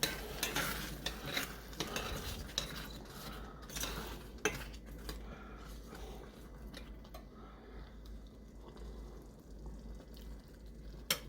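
Light, scattered clatter of small hard objects clinking and knocking, like dishes or utensils being handled, over a faint hiss and a steady low hum. A sharp click comes near the end.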